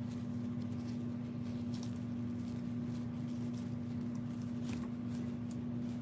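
A steady low hum, with faint scattered rustles and light ticks from a hand stroking a rabbit's fur on grass.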